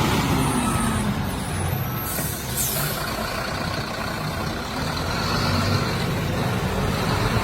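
Heavy diesel truck engine running steadily at low revs.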